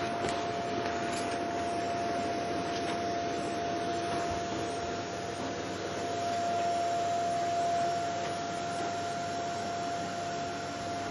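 Vacuum cleaner running steadily on a wooden floor, a rushing air noise with a steady motor whine over it, swelling a little in the middle.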